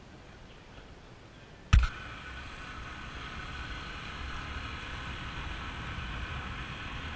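A single loud thump about two seconds in, then the steady running of a vehicle with a faint whine, growing a little louder.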